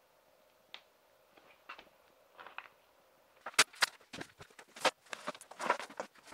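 A few faint clicks, then from about halfway through a run of sharp metallic clacks and knocks as a folding aluminium work platform is opened out and set down, with footsteps among them.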